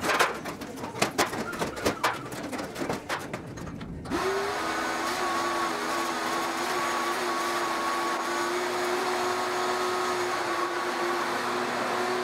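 Clattering and knocking of parts being handled, then a vacuum cleaner switches on about four seconds in, its pitch rising as it spins up, and runs steadily.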